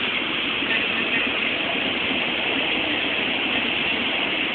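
Steady running noise of a moving train heard inside the passenger car, an even rumble and hiss with no distinct events.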